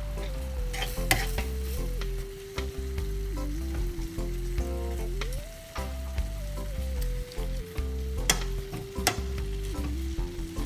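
Minced meat sizzling as it fries in a pan, stirred with a spoon that scrapes against the pan now and then. A soft background music track with a slow stepping melody plays underneath.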